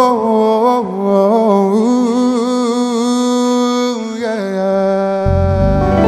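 Live pop performance: a single voice holds a long, slightly wavering sung note, then moves to a second held note, and bass and band come in about five seconds in.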